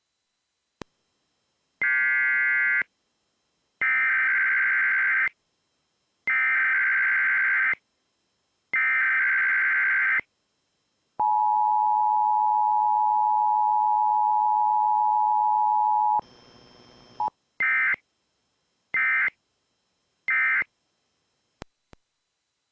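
Emergency Alert System tones broadcast over the radio: four harsh digital data bursts (the SAME header) a second or so apart, then the steady two-tone attention signal for about five seconds. Three short data bursts near the end mark the end of the message.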